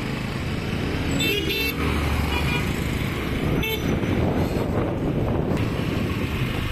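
Scooter ride through town traffic: steady wind and road rumble on the microphone, with short vehicle horn toots, two about a second and a half in and one near four seconds.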